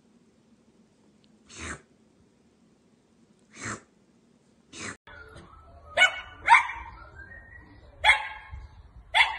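Small dog barking in four short, sharp barks in the second half, the loudest sounds here. Before it, three brief sounds stand out over near-silence.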